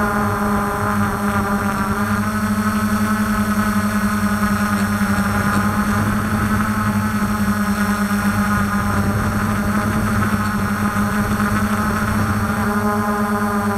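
DJI F450 quadcopter's brushless motors and propellers humming steadily in flight, heard close up from a camera mounted on the airframe. A strong low drone with a few higher tones that waver slightly.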